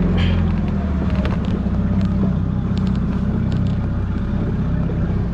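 Rescue boat's motor running steadily underway, a loud low drone with the rush of wind and water over it.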